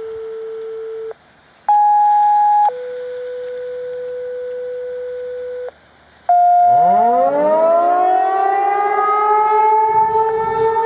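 A short run of steady electronic tones at changing pitches, broken by brief silences, then, from about seven seconds in, Federal Signal Equinox tornado sirens winding up. Their pitch rises from a low growl and levels off into a loud, steady wail on two notes sounding together, at the start of a scheduled siren test.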